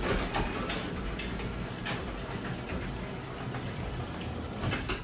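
Honda CBR600RR inline-four engine idling steadily through a Yoshimura carbon-fibre slip-on exhaust, with the bike on a rear stand. A low, even rumble is heard, with a couple of brief knocks.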